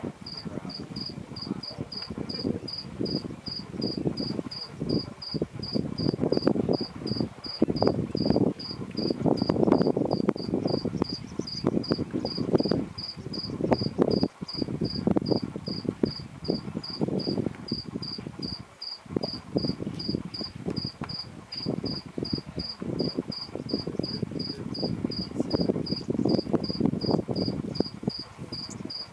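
A high insect chirp repeated evenly about three times a second without a break, over a louder, uneven low rushing noise.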